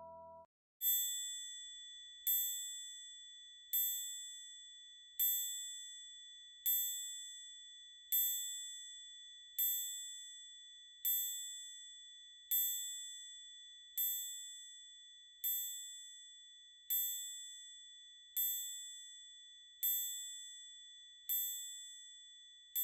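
A high, bell-like ding struck evenly about every second and a half, each stroke ringing and fading before the next, over a steady high-pitched tone, as part of a film soundtrack.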